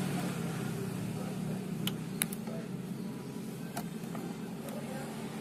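Low steady hum of an engine running in the background, with a few light clicks about two and four seconds in.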